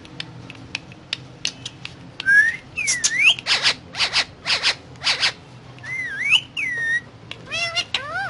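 Indian ringneck parrot whistling in rising and falling glides, mixed with several harsh, noisy calls and a fast warbling run near the end, after a couple of seconds of scattered sharp clicks.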